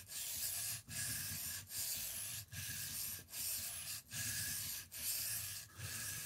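Knife blade stroked back and forth on a Shapton Kuromaku 1000-grit ceramic whetstone: eight even scraping strokes with short breaks between, a little faster than one a second. The edge is being ground at a steep angle to raise a burr along it.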